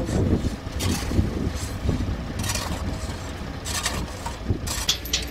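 An engine idling steadily, with the scrape and hiss of a shovel digging and flinging dry sand several times.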